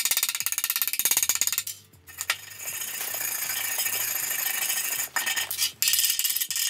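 Chipping hammer tapping quickly to knock slag off fresh self-shielded flux-core welds on a steel pipe. In the middle a steel wire brush scrubs the welds for a few seconds, and the tapping comes back near the end.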